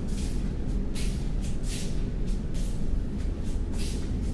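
Steady low rumble of a car ferry's engines carried through the ship, with short irregular hissy rustles over it every half second or so.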